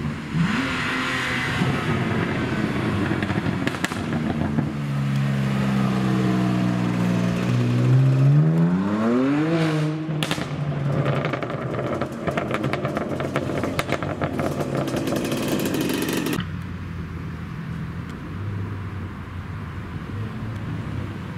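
BMW M2's turbocharged straight-six accelerating hard, its engine note rising steadily for several seconds, then crackling and popping from the exhaust as the car pulls away. After a sudden cut, a McLaren 720S's twin-turbo V8 rumbles low and steady at a slow roll.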